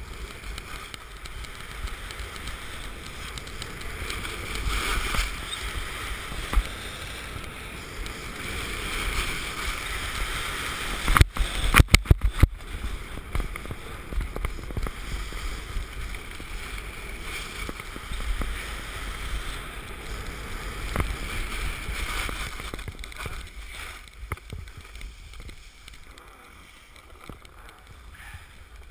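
Wind buffeting a GoPro HD camera while sliding down a groomed ski slope: a steady rush with the hiss and scrape of edges on packed snow. A quick run of sharp knocks comes about eleven to twelve seconds in, and the rush eases near the end.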